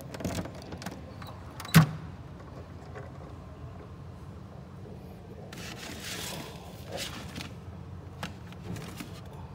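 A single loud sharp clack about two seconds in, from the Honda Helix scooter's under-seat storage being opened, followed by smaller knocks and a couple of seconds of rustling as a charger and its cables are handled inside the plastic compartment.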